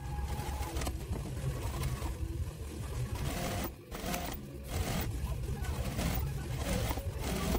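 Juki industrial sewing machine stitching, with fabric being handled, the sound sped up fourfold in a timelapse.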